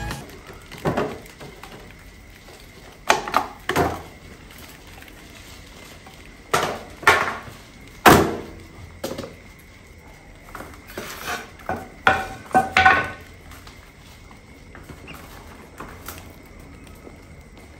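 A plastic bucket rat trap and its wire-mesh top being handled and opened: irregular knocks, rattles and scrapes of plastic and wire, the loudest clatters about 8 and 13 seconds in.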